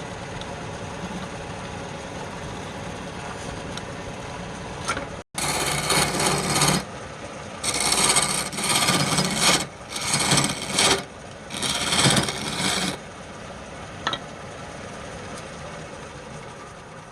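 Wood being rasped or filed by hand in four spells of scraping strokes, each a second or two long, over a steady background noise.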